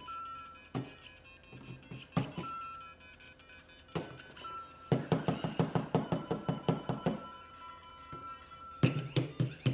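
LEGO Super Mario interactive figure playing short electronic beeps and game tones while its plastic body knocks on the brick course. In the middle there is a quick run of about ten clicks a second for a couple of seconds, and a longer held beep follows.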